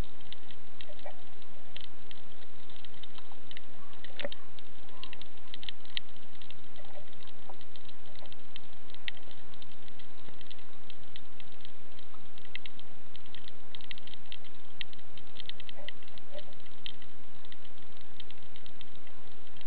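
Underwater crackle over a rocky seabed: a dense, irregular stream of short sharp clicks, the reef crackle typical of snapping shrimp.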